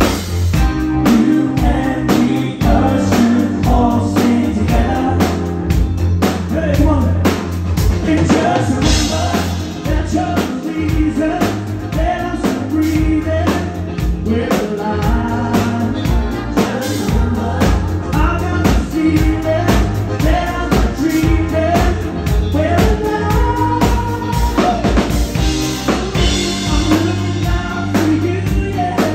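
Live band playing a song, with a drum kit keeping a steady beat under bass and a singing voice.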